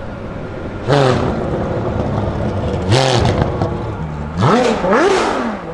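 Ferrari 599XX race car's V12 idling, then revved in sharp throttle blips, the pitch leaping up and dropping back. There is one blip about a second in, another around three seconds, and a quick run of blips near the end.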